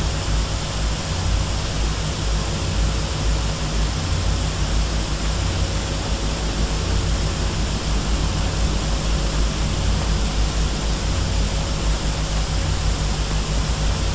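Wind of a snowstorm blowing steadily, a constant rushing hiss over a deep rumble that swells and dips, heard on an old, noisy television soundtrack.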